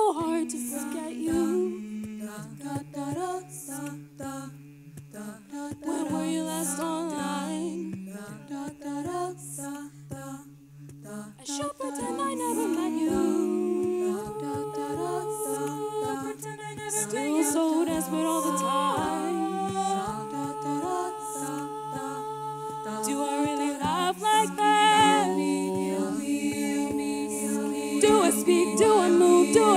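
Women's a cappella group singing: a solo female lead voice over sustained backing harmonies, with beatboxed vocal percussion keeping a steady beat.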